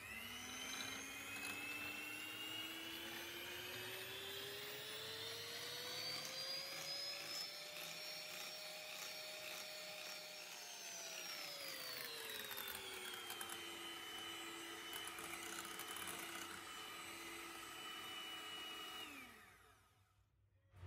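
Electric hand mixer whipping cream and sugar in a glass bowl, its motor whining steadily. The whine climbs in pitch over the first several seconds, holds, then drops to a lower steady pitch and cuts off near the end, as the cream thickens to soft peaks.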